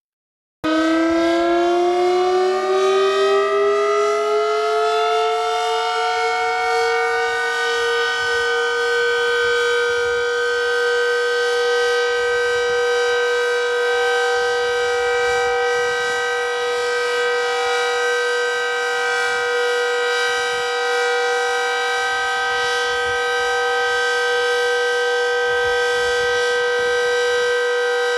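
Civil defense warning siren starting up about a second in, its pitch rising for several seconds, then holding one steady, loud tone.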